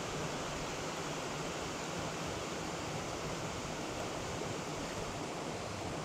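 Steady rush of a mountain stream's water running over rocks.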